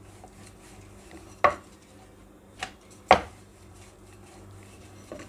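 Wooden rolling pin rolling out paratha dough on a wooden board, with three sharp wooden knocks about one and a half, two and a half and three seconds in, the last the loudest.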